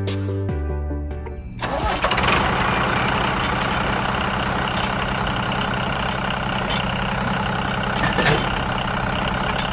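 Music that breaks off about a second and a half in, when a tractor engine starts and then runs steadily.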